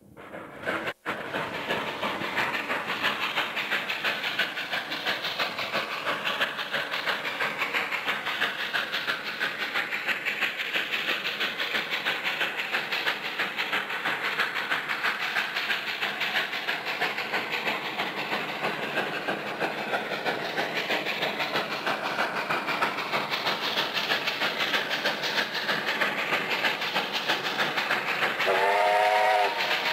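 Steam locomotive of the Heber Creeper tourist train working toward the listener, its exhaust beating in a rapid, steady rhythm. The engine's steam whistle starts blowing near the end.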